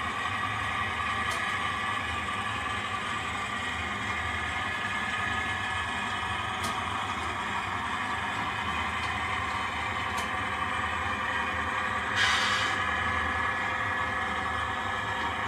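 H0-scale model freight train running along the layout track: a steady whirr of the locomotive motor and wheels on the rails, with a short hiss near the end.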